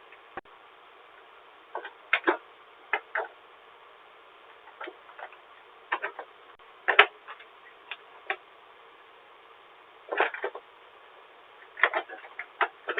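A dozen or so irregular clicks and taps over a steady hiss, the loudest about seven seconds in, heard through a doorbell camera's thin-sounding microphone.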